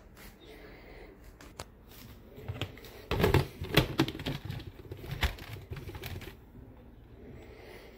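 Plastic blender jar being set down and seated on a KitchenAid blender base: scattered light clicks, then a cluster of loud knocks and clatter from about three to five seconds in. The blender motor does not run.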